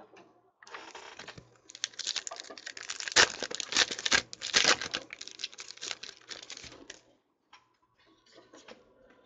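Foil wrapper of a Panini Prizm football card pack crinkling and tearing as it is ripped open, a dense run of crackles, followed by a few light clicks as the cards are handled.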